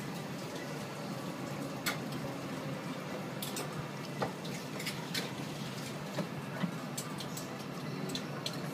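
Light clicks of a spoon against a plate, scattered irregularly, over a steady low room hum.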